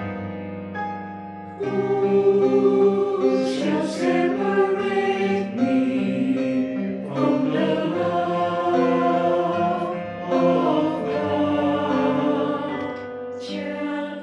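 Mixed church choir singing a slow gospel song in several parts; a quieter passage gives way to the full choir coming in loudly about a second and a half in.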